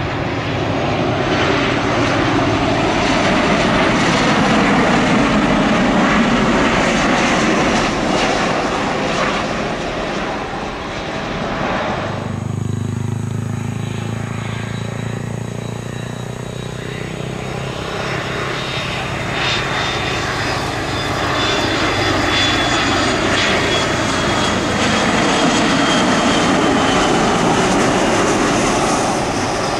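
Boeing 737 jet engines running loud on landing approach. About twelve seconds in the sound cuts to a McDonnell Douglas MD-80-series airliner landing: a low rumble that swells into the roar of its rear-mounted engines, with a high whine slowly falling in pitch near the end.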